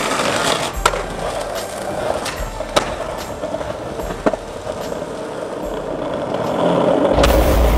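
Skateboard finishing a grind along a stone ledge and then rolling over paving tiles, a steady wheel rumble broken by a few sharp clacks, the first about a second in. Near the end it gives way to a louder low rumble.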